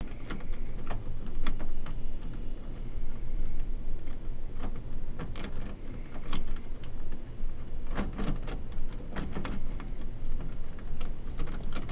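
Irregular sharp clicks and rattles over a steady low rumble.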